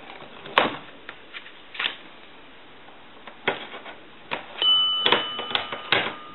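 Sharp plastic clicks and knocks of a telephone line cord's modular plug being handled, pulled out and pushed into a jack coupler, about seven clicks in all. About two-thirds in, a steady two-pitch electronic tone starts, and its higher pitch stops after about a second.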